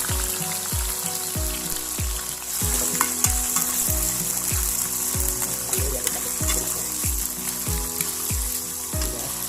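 Pieces of jengkol frying in hot cooking oil, sizzling steadily. Under it runs background music with a regular beat of deep, falling bass notes about every two-thirds of a second.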